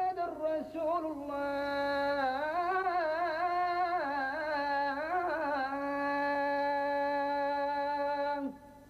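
A solo female voice singing an ornamented, wavering melody that settles into one long held note and stops shortly before the end.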